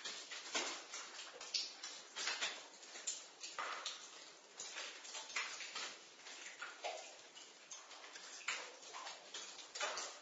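Water dripping in a basement: irregular drops, two or three a second, some landing with a short pitched plink.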